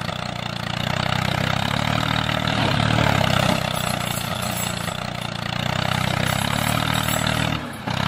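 Tractor engine running steadily, its sound swelling and easing every few seconds, with a brief drop near the end.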